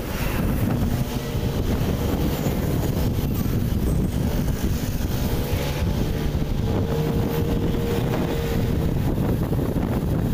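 Wind buffeting the microphone of a moving vehicle, with road and engine rumble underneath. A faint droning tone comes in for a few seconds midway.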